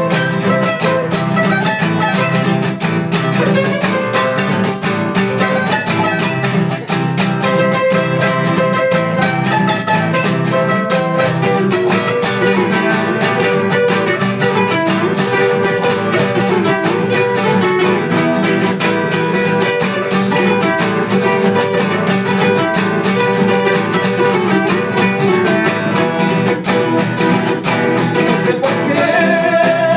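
Ecuadorian requinto guitar playing a quick plucked melody of an instrumental bomba passage over a lower guitar accompaniment.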